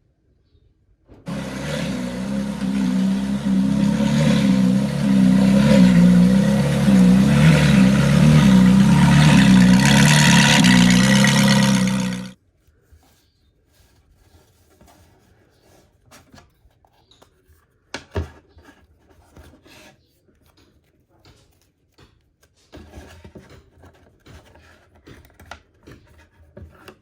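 A loud motor running steadily for about eleven seconds, then cutting off suddenly. Faint clicks and a single sharper knock follow.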